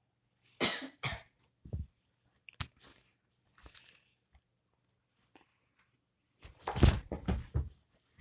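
Rustling, rubbing and bumping handling noise from a soft cat plush and the phone being moved about close to the microphone, coming in irregular bursts that are loudest about half a second in and again near the end.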